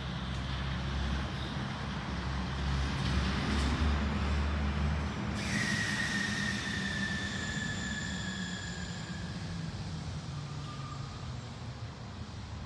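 Low rumble of a large passing vehicle, loudest about four seconds in. From about five and a half seconds in, a high steady whine, slowly falling in pitch, sounds over it for a few seconds.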